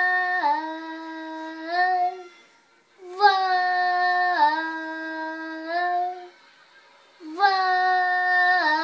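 A young boy singing unaccompanied, in three long held phrases with short breaths between, each phrase stepping down to a lower note partway through.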